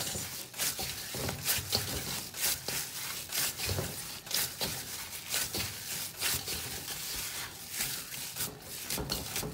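Gloved hands kneading soft, oiled roti dough in a stainless steel bowl: repeated slaps and rubs of the dough against the metal, about two a second.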